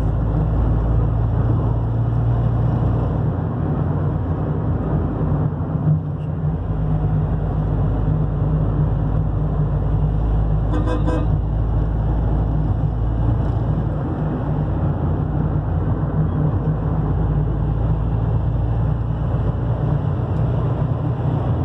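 Steady engine and road rumble heard inside a moving Toyota car's cabin, with a vehicle horn tooting once, briefly, about halfway through.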